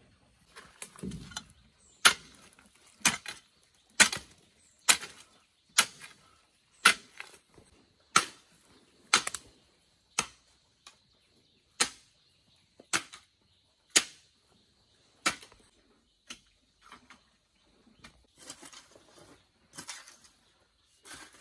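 Repeated sharp blows of a hand tool, about one a second, followed near the end by lighter, scattered knocks.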